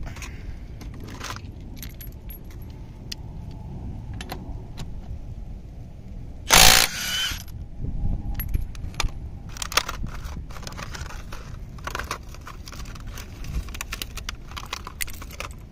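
A cordless Milwaukee impact wrench runs in one short, loud burst about seven seconds in, taking a lug nut off a car wheel. Around it come scattered metallic clinks and jangles of lug nuts and the socket being handled.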